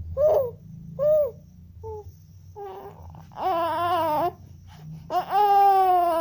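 Baby crying in fright at a motorbike's noise: a few short whimpers, then two long wailing cries in the second half. A low engine rumble runs underneath in the first half and fades out.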